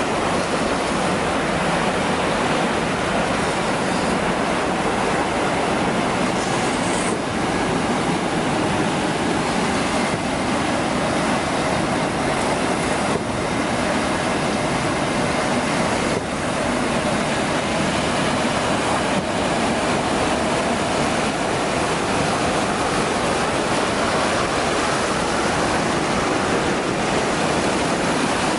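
Steady rushing and churning of water in an aerated activated-sludge reactor, its surface stirred up by the aeration, with water spilling over the discharge weir.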